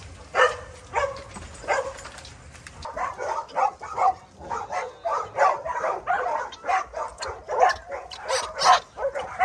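A pack of dogs barking and yipping excitedly: a few single barks at first, then from about three seconds in a rapid run of overlapping barks and yelps.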